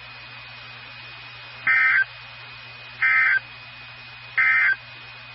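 Three short, loud bursts of Emergency Alert System (SAME) digital data tones from NOAA Weather Radio, each about a third of a second long and just over a second apart. This is the end-of-message code that closes a severe thunderstorm warning. A steady radio hiss with a faint hum lies underneath.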